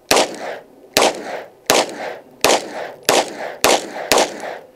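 Seven pistol shots in about four seconds from a Springfield Prodigy 1911 DS firing Winchester Defender +P 124-grain rounds, each with a short echo, the shots coming a little faster toward the end.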